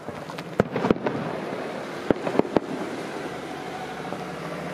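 Fireworks shells bursting overhead: a quick cluster of sharp bangs about half a second in, and another cluster of three about two seconds in, over a steady background noise.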